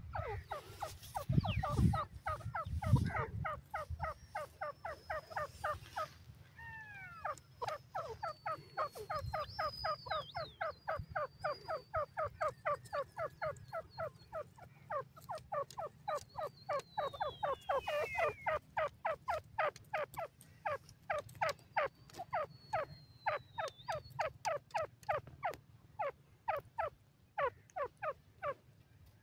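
Grey francolin calling: a long, rapid series of short repeated notes, about four to five a second, with a short break about six seconds in. A few low thumps near the start and faint high whistles sit behind the calls.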